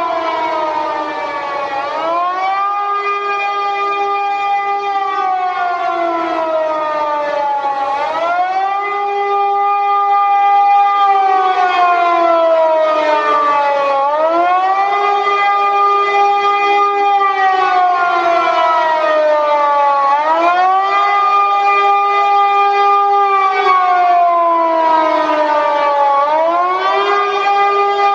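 Civil defense air-raid siren wailing: its pitch rises quickly, holds for a couple of seconds, then slides slowly down, about once every six seconds, the rising-and-falling wail that warns of an attack.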